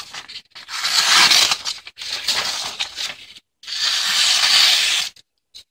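The blade of a knife slicing through paper in three long strokes, with a crisp rustling hiss on each pass, as a test of its factory edge.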